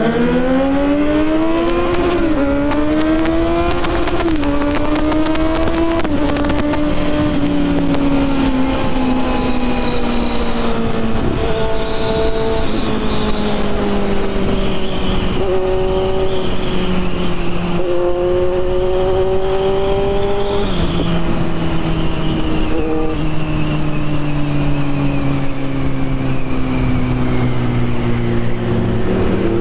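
Kawasaki Z900 inline-four engine heard from the rider's seat, pulling hard up through the gears with three quick upshifts in the first six seconds. It then cruises at highway speed, its note easing down and rising again gently.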